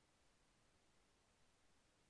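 Near silence: only a faint, even hiss.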